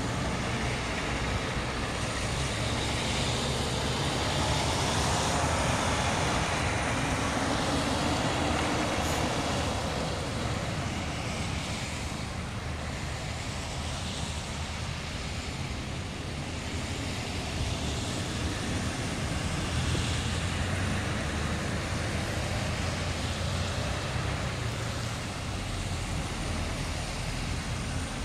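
A procession of tow trucks (wreckers and a flatbed) driving past one after another: engines running and tyre noise on the wet road, swelling and fading as each truck goes by.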